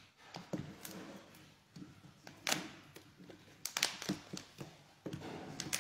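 Shell of a large cooked mantis shrimp cracking as it is pulled apart and peeled by hand: irregular sharp cracks and crackles, the loudest about two and a half and four seconds in.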